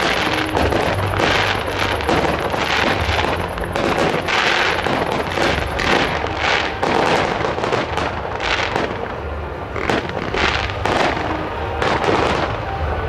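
Fireworks display: a rapid, unbroken string of sharp bangs and crackles as shells and comets fire and burst in quick succession.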